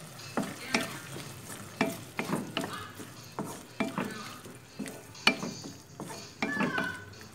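A spatula stirring and scraping abalone strips around a wok of bubbling chili sauce, with irregular knocks and scrapes against the pan over a steady sizzle.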